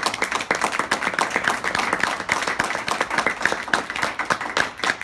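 Small audience applauding: a roomful of people clapping their hands steadily, with many sharp claps overlapping.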